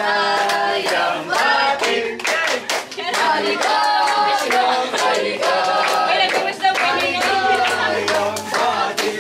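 A group of adults and children singing together while clapping their hands along.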